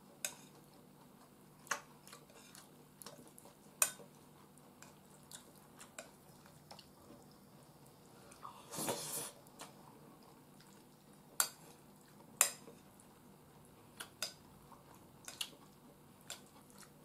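Spoon tapping and scraping against a bowl of curry rice while eating: a dozen or so scattered light clinks and clicks. A louder, longer noisy sound comes about nine seconds in.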